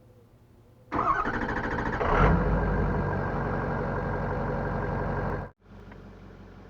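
2005 Ford F-250's 6.0 L Power Stroke V8 turbo-diesel, heard from inside the cab, starting up: the starter cranks for about a second, the engine fires and flares up, then settles into a steady idle. About five seconds in the sound cuts off sharply and comes back as a much quieter steady hum.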